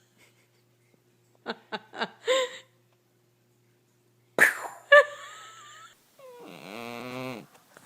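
A pet's vocal sounds: a few short sharp calls, a loud sudden cry about four and a half seconds in, then a long wavering wail near the end.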